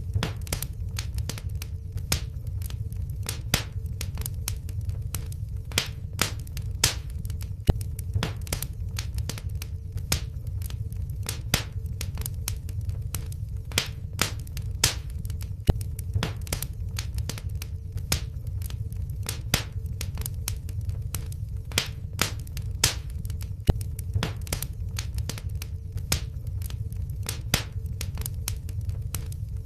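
Wood fire in a fireplace crackling: irregular sharp pops several times a second over a low steady rumble, with a faint steady hum.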